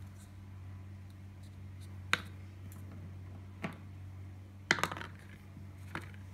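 Light clicks and taps of small hard dog treats being handled and dropped into a paper cup on a table: four separate taps, the third a short rattling cluster and the loudest. A low steady hum runs underneath.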